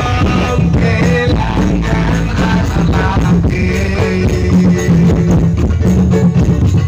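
Loud live band music over a PA sound system: a melody line over a steady bass line.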